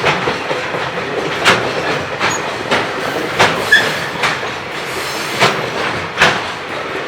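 Freight train rolling past, its wheels clacking over rail joints about once a second over a steady rumble of running gear.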